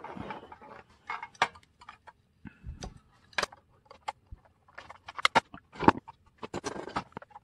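Hard plastic parts of a 1:32 scale RC model truck being handled and fitted together: irregular light clicks and taps, coming thicker from about five seconds in.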